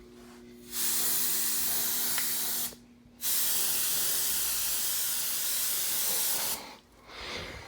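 Aerosol can of canned test smoke spraying at a smoke detector in two long hissing bursts, about two seconds and then about three and a half seconds, with a brief faint hiss near the end.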